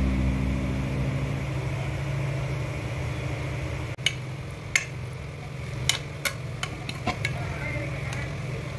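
Steel spatula stirring cluster beans in a metal pressure cooker pot, with about six sharp clicks and scrapes of metal on metal from about four seconds in, over a steady low hum.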